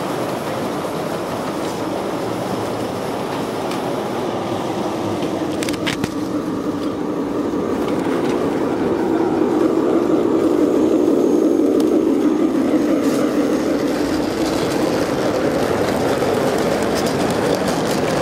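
Gauge 1 model railway goods wagons rolling along metal track, a steady rumble that grows louder towards the middle and then eases a little, with a few light clicks about six seconds in.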